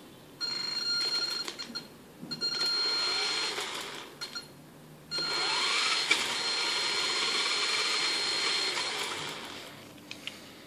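Brushed electric motor of an HSP 4WD RC car running under throttle in three bursts, about half a second, two seconds and five seconds in. It has a steady high whine, and its pitch rises as the motor speeds up.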